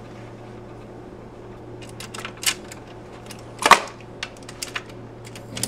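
RCA Victor Orthophonic SHF-7 console's automatic record changer cycling to drop a record onto the platter: a string of sharp mechanical clicks and clacks over a steady motor hum, the loudest clack about two-thirds of the way through.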